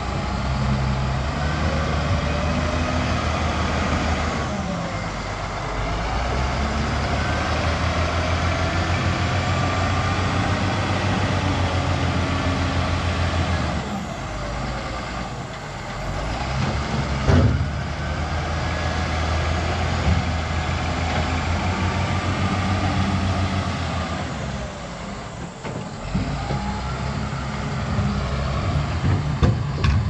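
Caterpillar wheel loader's diesel engine running under load while it pushes and scoops earth with its grapple bucket. The engine note rises and falls, with a whine that glides up and down, and there is a single sharp clank about seventeen seconds in.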